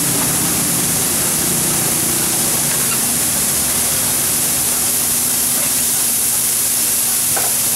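Bean sprouts sizzling on a hot steel teppanyaki griddle, giving off a steady hiss of steam.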